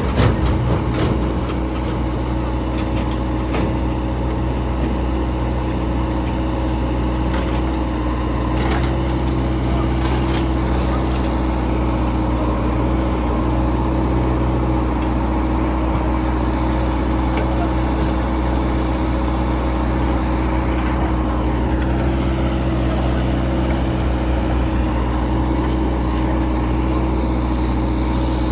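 Heavy diesel engine running steadily, with a few sharp knocks in the first ten seconds and a brief change in pitch about twenty seconds in.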